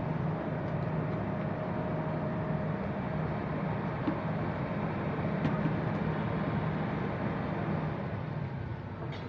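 Excavator engine running steadily with a low, even hum.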